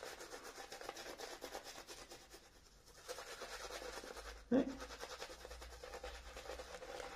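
Shaving brush working lather over a face, a quick run of soft scratchy rubbing strokes that eases off briefly about two and a half seconds in. A short voice sound is heard about four and a half seconds in.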